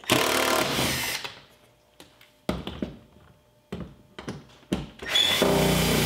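Cordless impact driver backing out the screws under a car door's inside handle: a run of about a second at the start, a few light clicks, then a second run of about a second and a half near the end.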